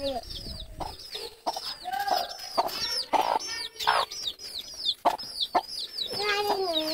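Chicks peeping without pause in short, high cheeps that slide downward, several a second, with a hen clucking now and then among them.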